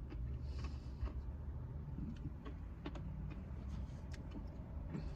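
Faint scattered clicks and taps of a plastic spoon in a Blizzard cup while eating, over a low steady rumble.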